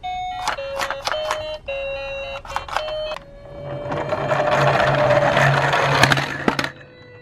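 Electronic toy-vehicle sound effects: a simple beeping tune of short stepped notes, then a louder whirring noise with a slowly rising tone that cuts off shortly before the end.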